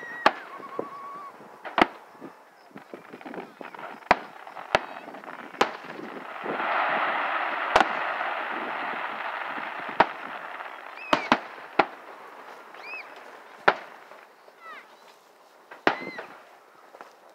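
Aerial firework shells bursting at a distance: about a dozen sharp bangs at uneven intervals, several coming in quick succession around two-thirds of the way through, with a few seconds of continuous noise in the middle.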